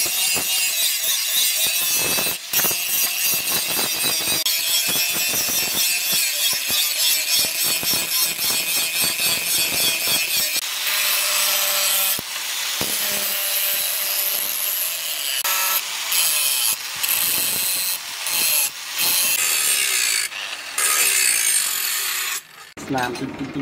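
Angle grinder with abrasive discs grinding a steel cleaver blade, a loud high-pitched rasp of disc on steel. It is broken off several times for a moment, and from about halfway a steady low hum of the motor comes through.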